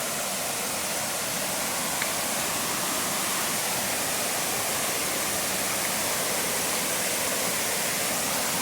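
Steady rushing of a mountain creek and waterfall, a dense even hiss of falling water that grows slightly louder.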